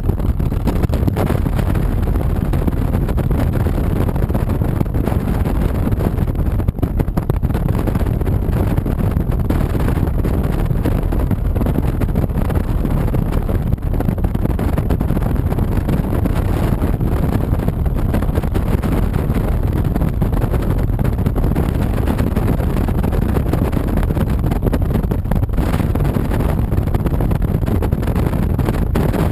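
Motorcycle riding noise: wind rushing over the microphone together with the 2007 Honda VTX 1300C's V-twin engine running steadily at cruising speed.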